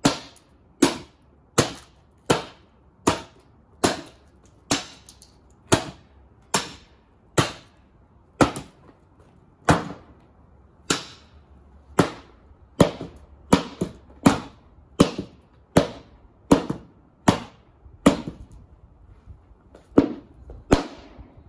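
A steady series of hard smashing blows, about one every second, breaking up the brittle plastic casing of a subwoofer.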